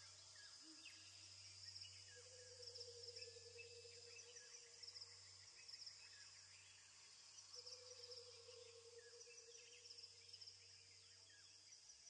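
Near silence with faint, repeated high chirps and short trills like birds or insects, two soft held tones, and a steady low hum underneath.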